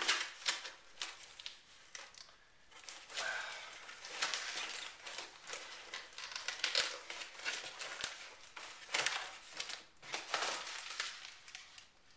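Cardboard box and clear plastic wrapping being handled and pulled open, crinkling and rustling in irregular bursts.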